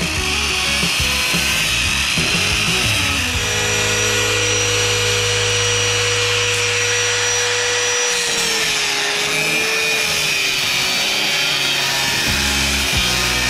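Angle grinder with a cut-off wheel running continuously as it cuts through a seized, rusted shaft to free it. Background music plays underneath.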